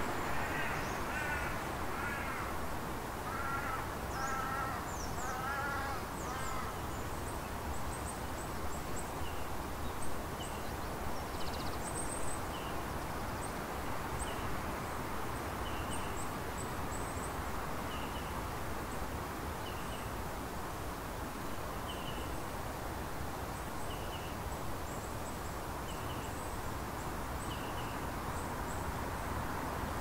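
A crow cawing repeatedly, a series of harsh calls in the first several seconds. After that a small bird repeats a short high chirp roughly once a second, over a steady rush of outdoor background noise.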